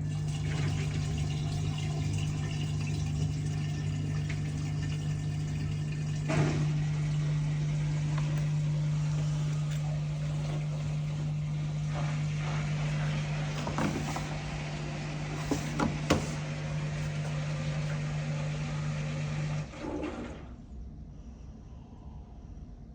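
Front-loading washing machine filling with water at the start of a quick-wash cycle: water rushing into the drum with a steady low hum, a few knocks along the way. The fill stops about twenty seconds in.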